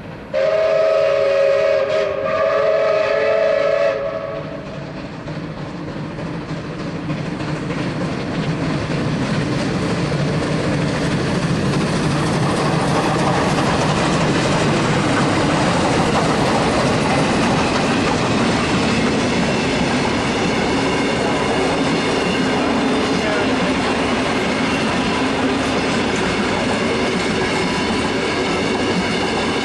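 Steam whistle of a BB18¼ steam locomotive blowing a loud chord for about four seconds, with a brief break about two seconds in. Then the double-headed BB18¼ locomotives and their train pass close by, a rising rush of engines, wheels and rolling carriages that holds steady, with faint steady tones joining in the later part.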